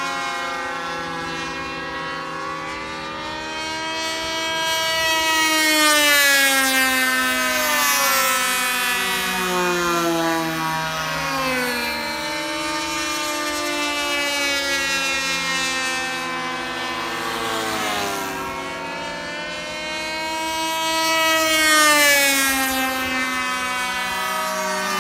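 Several model airplane glow engines running at high revs, overlapping, their pitch rising and falling as the planes change speed and pass by. The sound swells about six seconds in and again near the end as one passes close.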